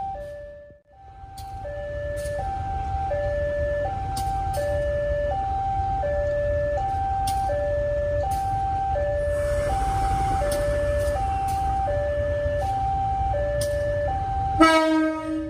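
Railway level-crossing warning alarm sounding a repeating two-tone high-low chime, over a low rumble. Near the end a short, loud horn blast cuts in.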